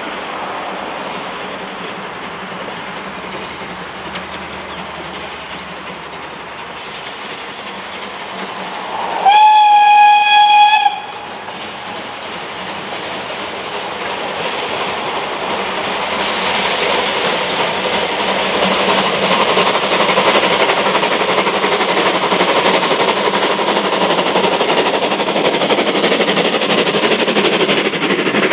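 The steam whistle of SR 'Terrier' 0-6-0 tank engine No.2678 'Knowle' blows once, a steady high note lasting about a second and a half, about nine seconds in. After it the running noise of the locomotive and its carriages grows steadily louder as the train approaches.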